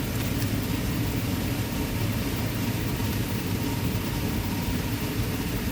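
Steady low mechanical hum with a faint thin whine above it, even in level throughout.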